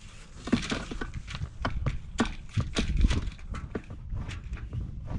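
Rapid, irregular knocks and clicks as the pipe holding the pitless adapter is jiggled inside the well casing to line the adapter up and seat it, with a louder ringing knock right at the end.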